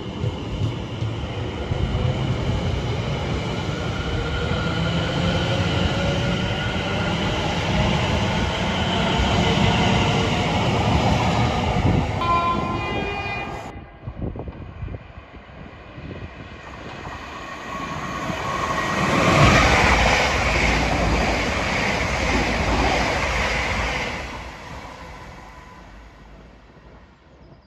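Greater Anglia Class 720 electric multiple unit pulling out, the whine of its traction motors rising in pitch over the rumble of the wheels, with a brief horn about twelve seconds in. After a sudden cut, another electric train runs through, building to a loud rush of wheels on rails and then fading away.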